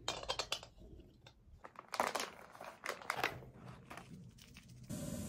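Clicks and crinkling of camp cookware and a foil freeze-dried meal pouch being handled. About five seconds in, the steady hiss of a small canister gas backpacking stove burning starts abruptly.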